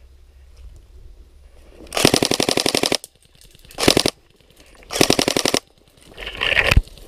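Airsoft rifle firing rapid bursts on full auto: a burst of about a second, then two shorter ones, with another short loud burst near the end.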